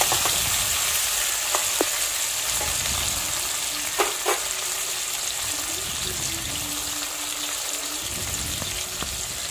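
Tomato and onion pieces sizzling in hot oil in a wok, a steady frying hiss. A few sharp clicks come through it, the two loudest about four seconds in.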